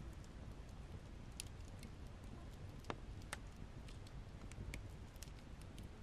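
Wood fire crackling: scattered sharp pops and snaps at irregular intervals over a low, steady rumble of burning logs, with two louder pops near the middle.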